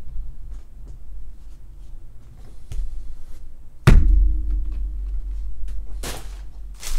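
A single dull thunk about four seconds in, over a low steady hum, with a few faint clicks before it and a brief rustle near the end.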